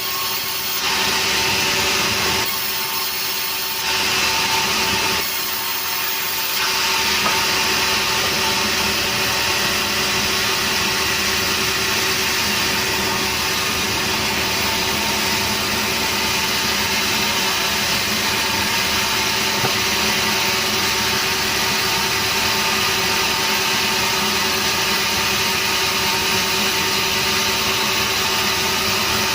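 Sawmill saw running and cutting through a nering log, a steady machine drone under a hissing cutting noise. The cutting noise drops away briefly twice in the first six seconds, then runs on evenly.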